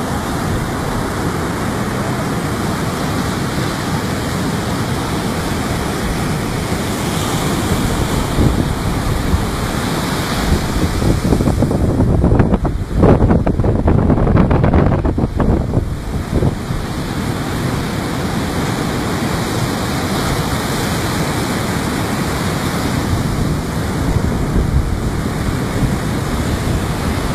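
Rough surf breaking and washing up a sandy beach, a steady rush of waves, with wind rumbling on the microphone. The rumble grows louder for a few seconds in the middle.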